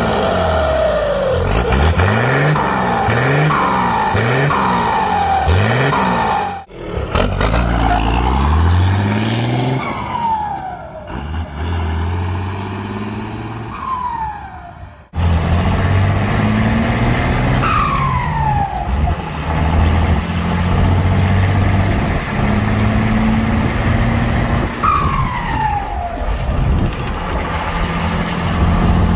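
Cummins 6BT inline-six turbo-diesel with a Holset HX35W turbo and a new downpipe exhaust, revved several times in quick succession, each rev followed by a falling turbo whistle. After a cut the truck is heard going past on the road, then from inside the cab pulling steadily, with the turbo whistle falling sharply twice as the engine note steps down.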